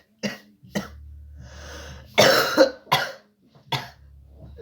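A person coughing repeatedly: about six short coughs, the loudest pair coming close together about two seconds in.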